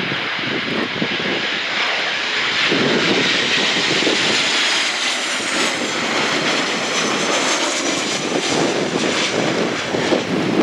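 Airliner engines running as the aircraft passes close by, a steady roar with a high whine that slides down in pitch midway through. Wind buffets the microphone throughout.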